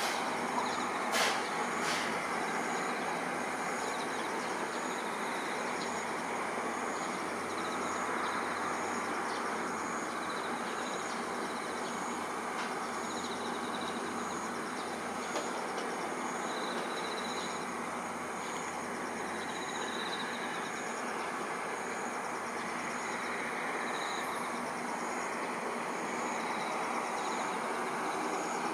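Steady distant city background noise with no change as the airliner approaches, with a faint high chirp repeating about one and a half times a second, typical of a singing insect. Two short sharp clicks come about a second and two seconds in.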